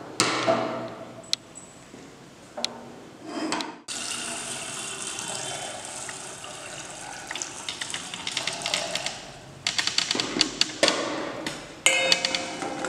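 Water poured from a jug into a steel pot of dry-roasted moong dal, a steady pour lasting about six seconds. Knocks and clinks of cookware come before it, and a spatula clinks and scrapes against the steel pot near the end.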